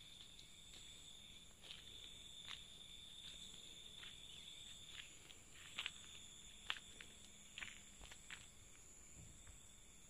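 Faint footsteps on paving and concrete, a few soft scuffs and taps, over a steady high-pitched insect trill.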